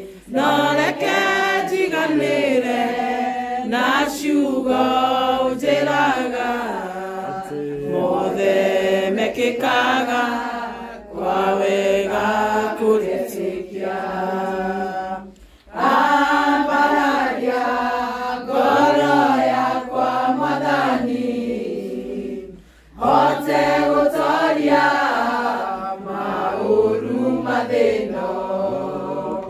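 A group of women and men singing a hymn together, with voices blending in a simple chant-like melody and short breaks between lines.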